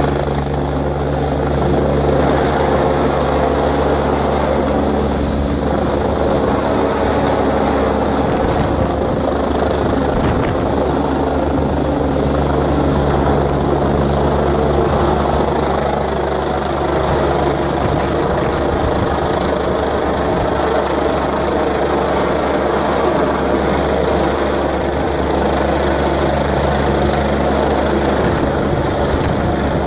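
Air force helicopter flying low overhead, its rotor and engine noise running steadily with a low, pitched hum that swells and fades slightly as it moves.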